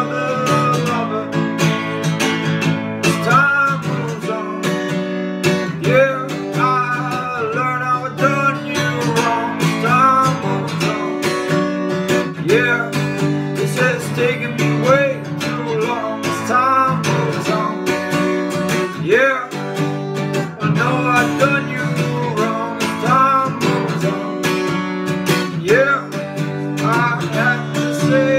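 Acoustic guitar strummed steadily in an even rhythm, with a voice singing a melody over the chords.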